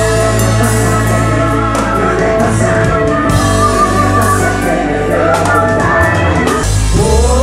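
Loud live pop-rock music with a heavy, steady bass and a man singing into a handheld microphone over it; near the end the voice slides upward into a held phrase.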